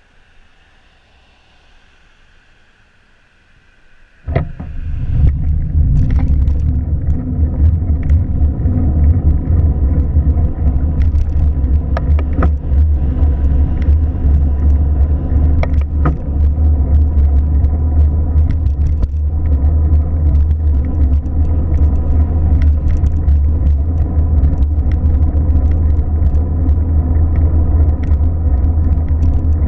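A car's low rumble starting suddenly about four seconds in after a quiet stretch, then running steadily with scattered clicks.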